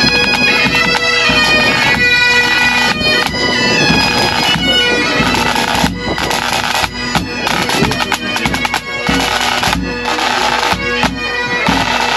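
Pipers' band of bagpipes playing a tune over their steady drone, with drum beats coming in.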